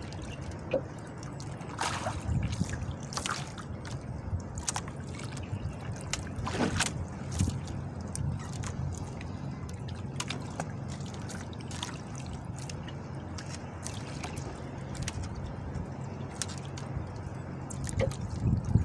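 Water trickling and dripping with small splashes, heard as a fishing handline is hauled hand over hand into a small boat, over a steady low rumble of wind and sea.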